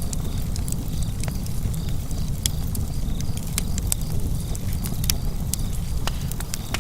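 Wood fire burning in a fireplace: a steady low roar of the flames with frequent sharp, irregular crackles and pops.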